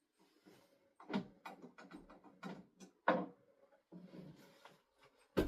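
Irregular knocks and clicks of furniture parts being handled and fitted during flat-pack assembly, the loudest knocks about a second in, about three seconds in and near the end.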